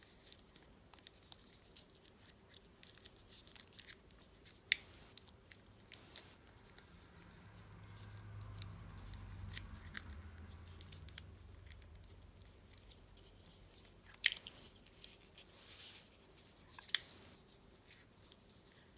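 Scattered sharp clicks and scrapes of a plastic fidget cube being handled and pushed into its protective fidget prism case, the sharpest four or five spaced irregularly. A faint low rumble rises and fades around the middle.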